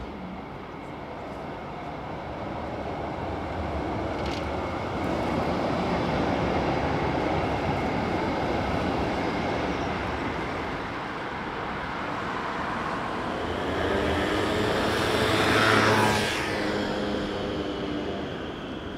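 Trams passing on a city street. A tram's rumble on the rails builds and peaks as it goes by about six seconds in. A second pass near the end brings a louder whine from the traction motors that drops in pitch as the tram goes past, then fades.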